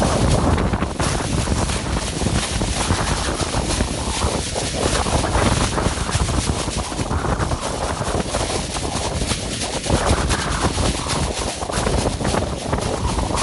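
Steady, dense rushing noise with a fast-flickering texture and no tone, beat or voice in it, wind-like in character.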